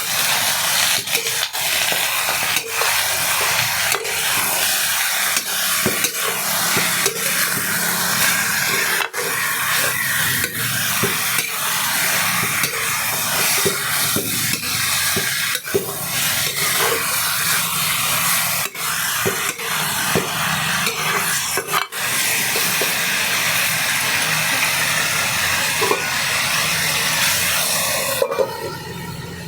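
Food sizzling as it fries in a pan, with a utensil stirring and clinking against the pan.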